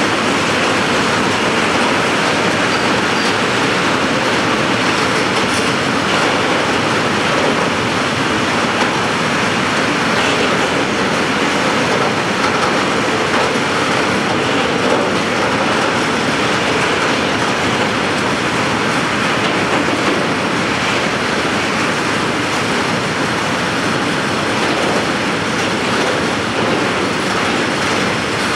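Freight train of tank wagons rolling steadily past, its steel wheels running and clattering over the rails.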